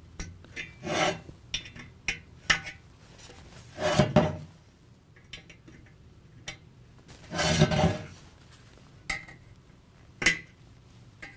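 Needle-nose pliers and a cast aluminium fan stator clinking and scraping as the flow control ring's plastic snaps are squeezed and pushed through the vanes to release the ring. Irregular sharp clinks, with longer scrapes about 1, 4 and 7.5 seconds in.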